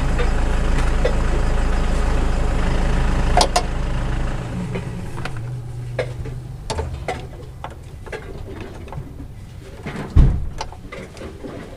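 A steady low motor hum that cuts off about four seconds in. After it, light metallic clicks and taps of a screwdriver and hands working the fuel hose fittings under the car, with one heavier knock near the end.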